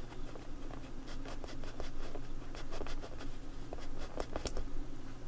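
Pilot Color Eno mechanical colored pencil worked over sketch paper: quick, irregular scratchy strokes of the lead or its end eraser on the page.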